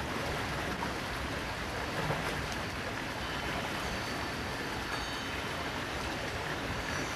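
Running water of a stream, a steady, even rush.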